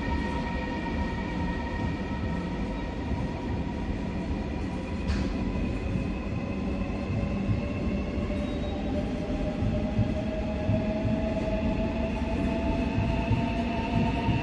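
Seoul Subway Line 4 electric train running through the station without stopping: steady wheel rumble with the traction motors' whine, which rises in pitch in the second half as the train picks up speed. A single sharp click about five seconds in.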